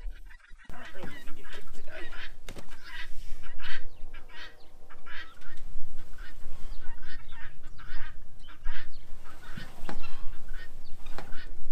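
Farm fowl calling in a steady string of short, honking calls, a few each second.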